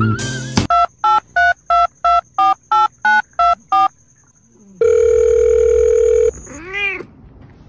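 Telephone keypad tones: about ten short two-note beeps, about three a second, as a number is dialled, followed after a short pause by a steady telephone tone lasting about a second and a half. A loud sound cuts off just after the start, and a short sound that rises and falls in pitch comes near the end.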